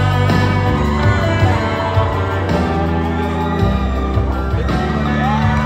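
Loud music with a heavy, steady bass under held chords.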